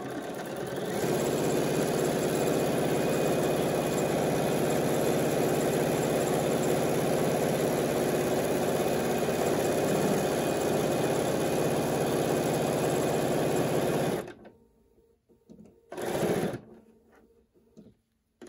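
Bernina B 790 Plus sewing machine stitching steadily at speed, sewing a fabric tie onto a cloth mask. The motor speeds up over the first second and stops suddenly about fourteen seconds in. A short burst of sound follows about two seconds later.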